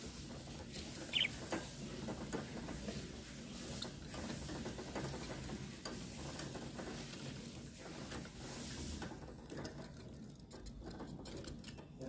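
Budgerigars scratching and rustling about in their cage, with one short high chirp about a second in.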